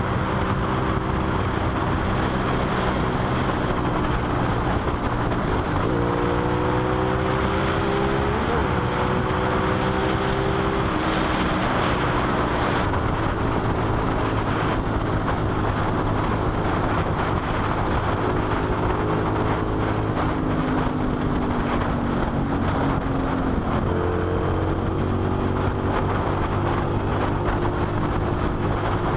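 Suzuki SV650's V-twin engine running at highway speed under heavy wind rush on the microphone. Its pitch jumps up sharply about six and eight seconds in, drops back around eleven seconds, sags slowly a little past twenty seconds and rises again a few seconds later.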